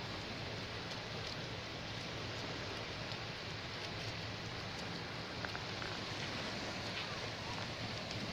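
Steady beach ambience: small waves washing onto the sand, a continuous even hiss with a few faint ticks.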